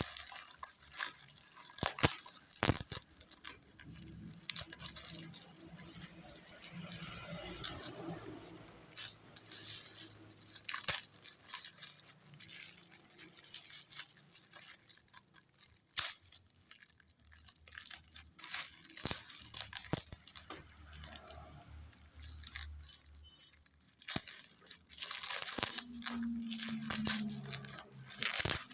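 Plastic packaging crinkling and rustling, with irregular sharp clicks and knocks as a broom set is unwrapped and handled.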